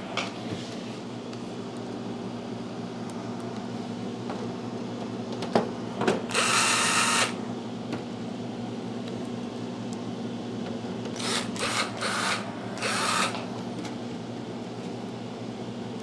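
Cordless drill-driver running sheet-metal screws in lightly: one run of about a second, then about four short bursts later, over a steady low hum.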